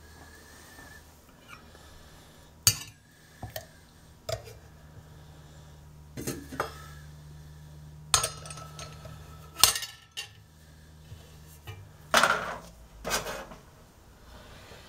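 Stainless steel percolator parts knocking and clinking together as the pump stem and perforated grounds basket are fitted into the pot: about eight sharp metal knocks, some ringing briefly.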